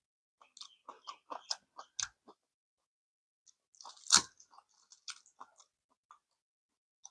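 A person chewing crunchy kimchi close to the microphone: a quick run of small crunches, then a louder single sharp crack about four seconds in, followed by a few more.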